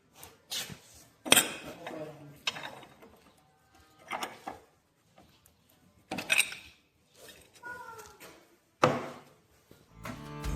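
Metal clinks and knocks of hand tools and bolts against the steel cutter bar of a diskbine as bolts are taken out: about half a dozen sharp, separate strikes, each with a short ring. Music comes in near the end.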